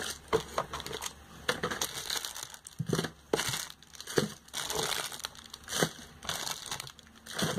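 Packaging being handled, crinkling and crackling in irregular rustles and clicks.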